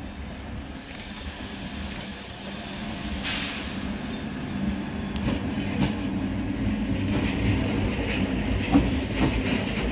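Train pulling into a station: the rumble of its wheels grows steadily louder as it approaches. In the second half come scattered clacks of the wheels over rail joints.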